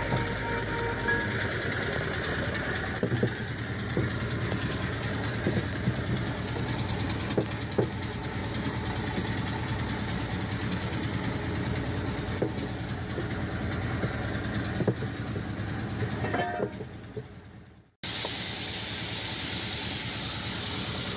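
An engine idling with a steady low rumble, with scattered sharp metal clicks and knocks from hand tools working on an excavator track roller. Near the end the sound fades away, then cuts back in with more hiss.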